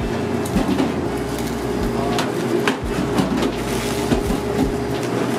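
Plastic cling film being stretched and pressed over a steel mixing bowl, with scattered crackles and taps, over a steady machine hum.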